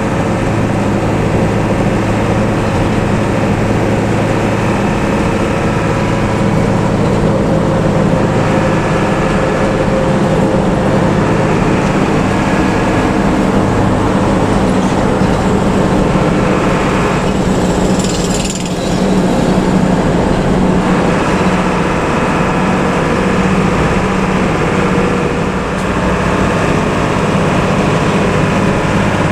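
Heavy bus diesel engine with a modified 'ngorok' (snoring) exhaust, running with a steady low drone.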